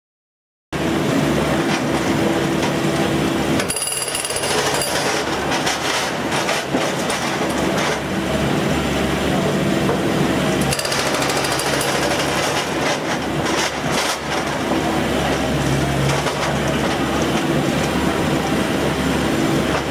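Brokk 800 demolition robot's hydraulic breaker hammering built-up slag off the mouth of a steel ladle, a loud, steady rapid pounding that starts abruptly about a second in, with a steady hum underneath.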